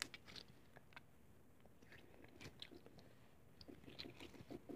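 Faint sticky clicks and crackles of slime being squeezed and kneaded between the hands, with a run of quick small pops near the end.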